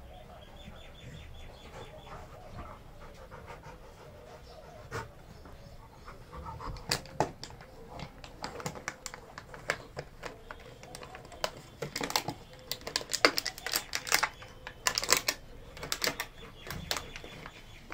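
A Labrador retriever and a Doberman puppy play-mouthing each other, with panting and many sharp mouth clicks and smacks that start about six seconds in and grow busier toward the end.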